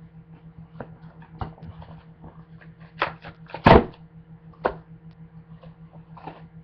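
Cardboard shipping box being handled and pulled open by hand: a handful of sharp knocks and scrapes of cardboard, the loudest a short rip about halfway through. A steady low electrical hum lies under it.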